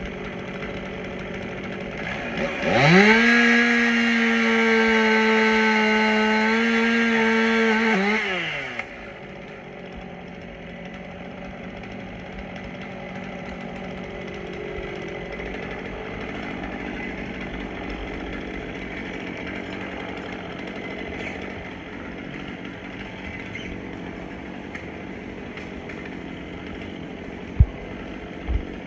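Chainsaw revving up to full throttle and running at high revs for about five seconds, then dropping off, with a steady low background afterwards. Two sharp thumps near the end.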